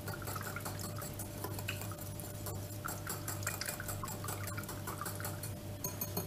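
Small metal whisk beating a milk-and-oil mixture in a ceramic bowl: quick light ticks of the wire against the bowl with liquid sloshing.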